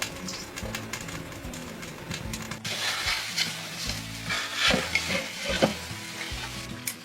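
Food sizzling in a pan, with scattered clicks of a utensil stirring; the sizzle grows denser about three seconds in.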